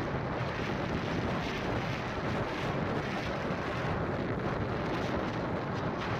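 Steady road and wind noise from a vehicle driving along a highway, an even rush with no changes.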